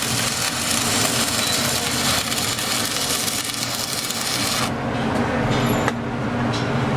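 Stick-welding arc crackling and hissing steadily, then cutting off abruptly about two-thirds of the way through as the arc is broken. A steady low hum carries on underneath.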